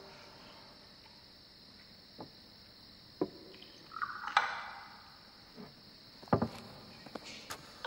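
Tableware at a meal: scattered clicks and knocks of cups and dishes on a wooden table, with a brief rush of sound about four seconds in, over a faint steady hiss.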